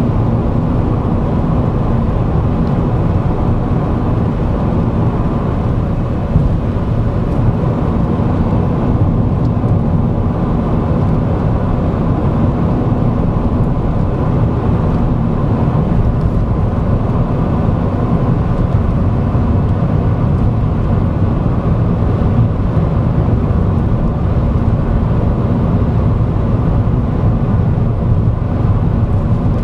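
Steady engine and road rumble heard inside the cabin of a Vauxhall Agila driving along at an even pace, with one brief bump about six seconds in.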